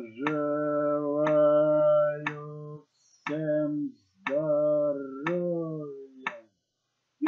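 A voice humming long, held notes that glide slightly and break off every few seconds, over a sharp tick exactly once a second that marks the meditation's beat count.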